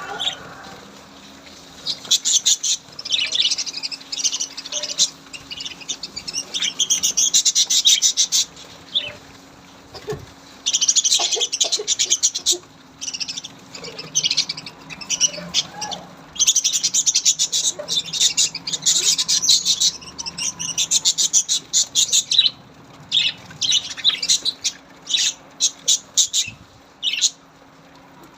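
A group of small birds chirping and chattering rapidly in long bursts a few seconds each, with short pauses between.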